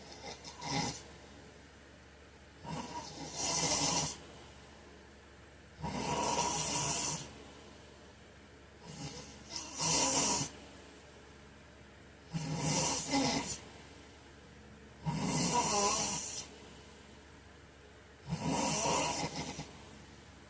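A man snoring in his sleep, one snore about every three seconds, six or seven in all.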